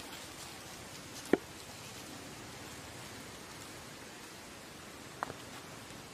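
Steady outdoor background hiss, with two brief sharp ticks: a louder one about a second in and a fainter one about five seconds in.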